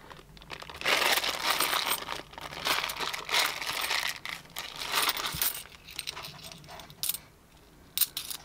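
Clear plastic bank bag of 50p coins crinkling and tearing as it is pulled open, in bursts of rustling. A few short coin clinks near the end as the coins are gathered into a stack.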